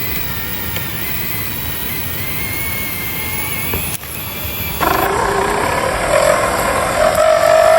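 Small electric motor and gearbox of a 1/12-scale RC crawler whining as it drives, the pitch wavering with the throttle. There is a cut about 4 s in, and the whine is louder from about 5 s on.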